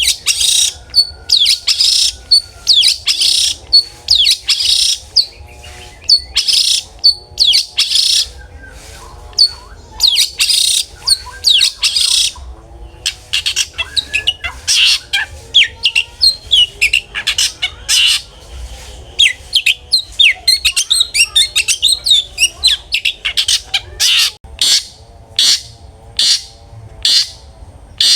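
A long-tailed shrike (cendet) singing loudly and continuously: rapid series of harsh, scratchy calls and sharp chattering notes in clusters, with brief pauses between them.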